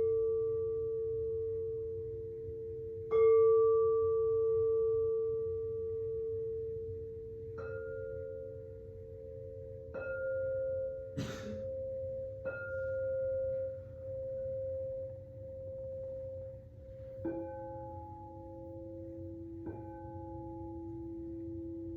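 Singing bowls of several different pitches struck one after another, about seven strikes, each ringing on and slowly fading under the next. The loudest strike comes about three seconds in, and there is a brief scratchy noise a little past halfway.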